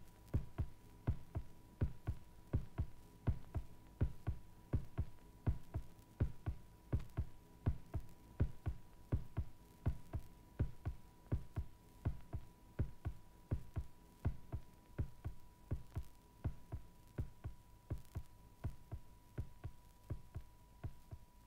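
Amplified heartbeat: fast, even beats at about two a second, with a thin steady high tone behind them.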